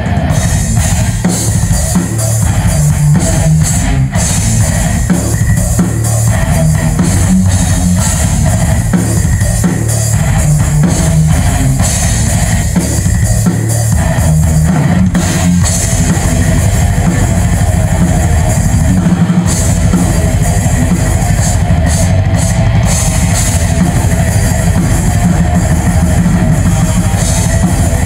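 Yamaha drum kit played loud and without a break: dense strokes on bass drum, drums and cymbals.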